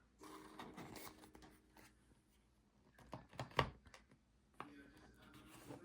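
Faint handling noises of Zippo lighters and their boxes being moved about: soft rustling with a few light clicks and knocks about three seconds in.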